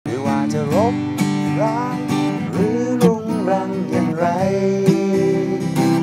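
Acoustic guitar strummed with a man singing a melody over it.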